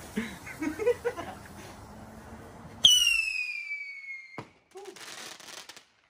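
A handheld whistling firework goes off: a sudden loud whistle starts high and slides steadily down in pitch for about a second and a half, then cuts off with a sharp crack. About a second of hissing follows.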